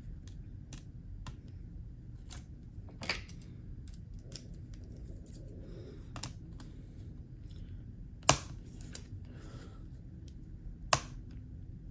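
Small metal clicks and taps of a screwdriver working at a very tight drive-retaining screw inside a laptop, scattered irregularly, with two sharper clicks in the second half.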